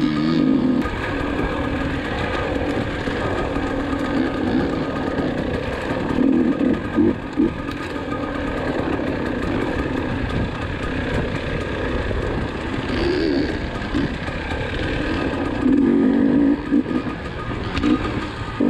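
Dirt bike engine running under the rider, the throttle opening and easing off in repeated surges, with the strongest pulls about a third of the way in and again past the three-quarter mark.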